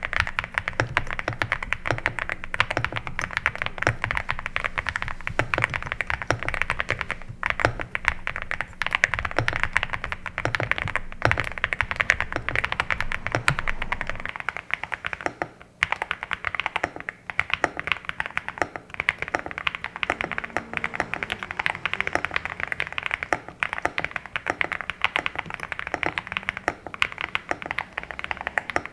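Typing on an EVO80 80% custom mechanical keyboard with factory-lubed switches and foam-dampened case: a fast, continuous run of keystrokes, with a brief break about sixteen seconds in.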